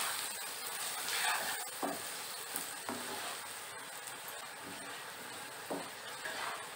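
Cut cluster beans and sliced onion sizzling in hot oil in a nonstick kadhai while a spatula stirs and tosses them to mix in the spice powders. There are a few light knocks of the spatula against the pan.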